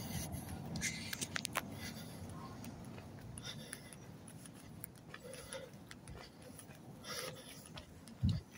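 Quiet handling noise from a hand-held phone carried while walking: scattered faint clicks and rustles, with a short low thump near the end.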